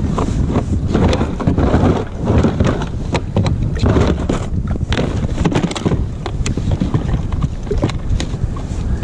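Wind buffeting the microphone, with many sharp clicks and knocks scattered throughout.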